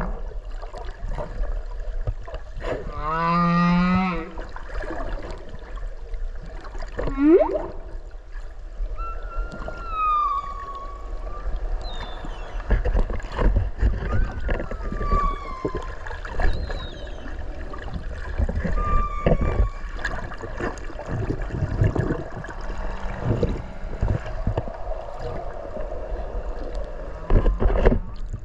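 Whale song recorded underwater: a low, buzzing pulsed call about three seconds in, a fast upward-sweeping call near seven seconds, then a series of short higher cries that slide downward, over a constant underwater crackle.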